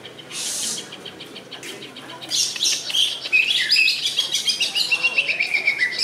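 Cucak ijo (greater green leafbird) singing: from about two seconds in, a loud, fast, varied run of high chirps and whistled notes with quick falling sweeps and a long, slowly descending whistle. A brief rush of noise comes about half a second in.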